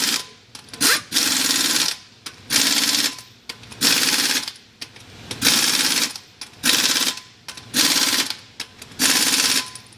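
Pneumatic impact wrench hammering in about eight short bursts, each under a second, as it runs the lug nuts down on a front wheel that is going back on after a hub bearing replacement.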